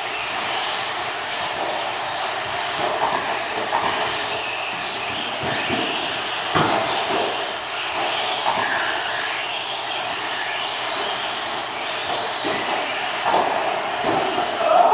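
Several electric RC stadium trucks racing on a dirt track: their brushless motors whining up and down in pitch as they speed up, slow and pass, with several sharp knocks along the way.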